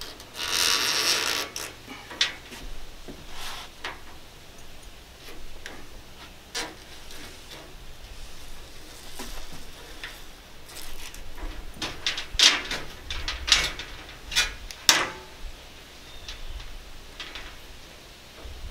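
Hand spline roller pressing spline and screen mesh into the channel of a window screen frame: irregular scrapes, creaks and clicks, with a longer scrape about a second in and a cluster of sharp, loud clicks a little past the middle.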